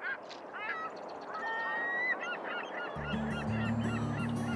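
Several birds calling over and over in short, repeated calls. Low sustained music notes come in about three seconds in.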